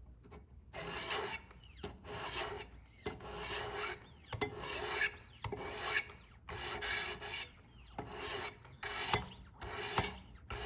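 Wicked Edge Gen 3 Pro's 1000-grit stones rasping along a steak knife's edge, with about ten even strokes at roughly one a second. The strokes are a marker test of the bevel at 18 degrees per side.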